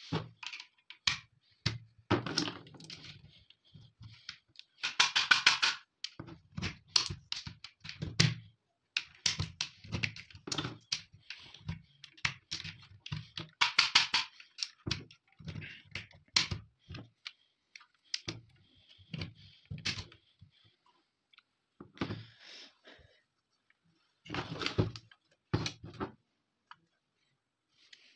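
Rifle cartridges being pushed one by one into an AKM magazine: many metallic clicks with short rattles of the rounds and magazine, in uneven bursts.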